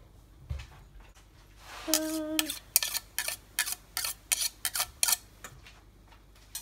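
Kitchen utensil tapping and clinking against a bowl, a run of quick sharp clicks about four a second lasting a couple of seconds, after a brief steady tone.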